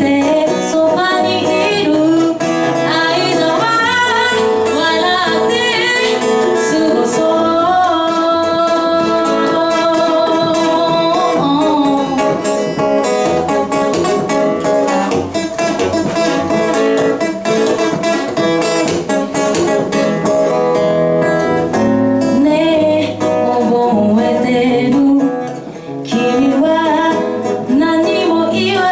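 A woman singing a pop song into a microphone to a strummed acoustic guitar, played live. Her voice drops out for a stretch in the middle while the guitar plays on, then comes back near the end.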